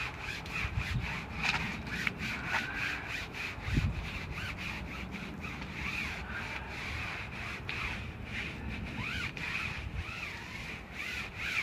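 Water-fed brush scrubbing a wet bug screen, the bristles rubbing over the mesh in quick repeated strokes.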